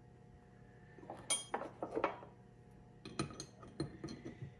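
Adjustable wrench clinking and scraping against steel hydraulic hose fittings as a fitting is tightened on a small hydraulic cylinder. The metallic clinks come in two short clusters, one about a second in and another about three seconds in.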